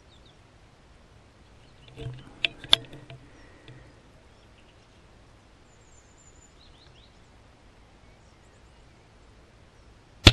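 Sandwell Field Sports Imp .22 spring piston air rifle fired once near the end, a single sharp crack. About two seconds in, a brief rustle with two sharp knocks, and faint bird chirps in between.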